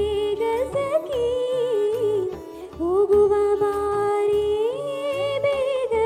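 A girl singing into a microphone: a solo melody with long held notes and ornamented slides between pitches, over a low rhythmic accompaniment.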